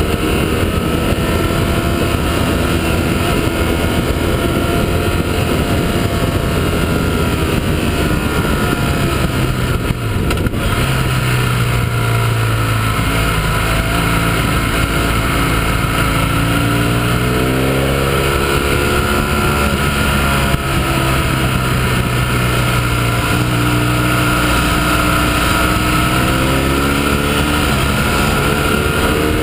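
Motorcycle engine heard on board at riding speed, its pitch falling and climbing again and again as the rider throttles and shifts through a run of bends. There is a steady rush of wind over it.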